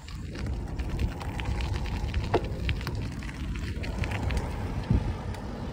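Wind rumbling on a phone microphone, with scattered crackling clicks over it.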